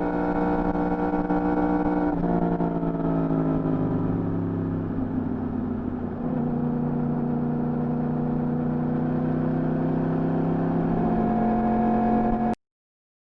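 Yamaha R1 inline-four engine on its stock exhaust, running under way. About two seconds in, the pitch drops suddenly as a gear is changed, then falls slowly and levels off into a steady, slightly rising note. The sound cuts out abruptly near the end.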